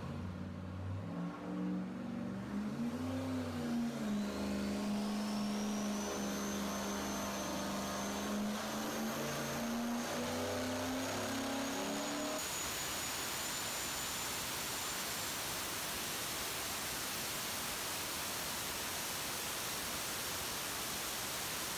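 Turbocharged 4.8-litre LS V8 with a GT45-type turbo running on an engine dyno. The engine note wavers in pitch for the first few seconds and then holds steady, with a thin high whine that climbs and then levels off. About twelve seconds in, the engine note gives way to a steady, even rush of noise.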